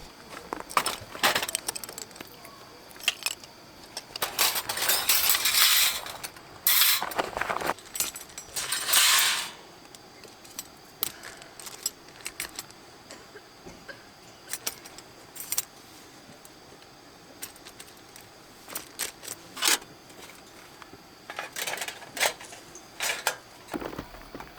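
Small hard objects clinking and rattling as they are handled, in scattered sharp clicks, with three longer bursts of rustling in the first ten seconds.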